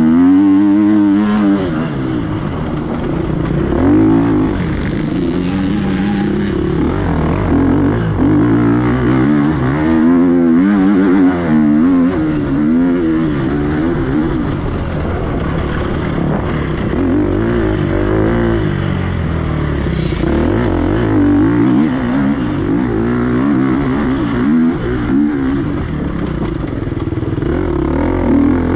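Enduro dirt bike engine, heard close up from on the bike, revving up and dropping back over and over as the rider opens and closes the throttle, its pitch rising and falling every second or two.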